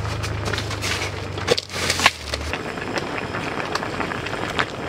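Steady crackling hiss of a pot of pasta cooking, with a few sharp ticks; a low steady hum stops about halfway through.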